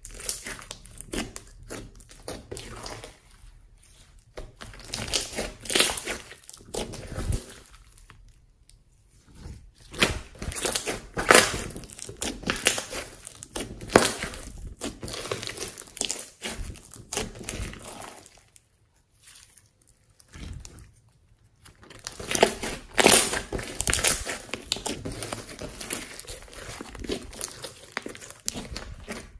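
Hands squishing, squeezing and kneading a large mass of glossy slime: irregular wet crackling and popping in busy stretches, with a couple of quieter pauses between handfuls.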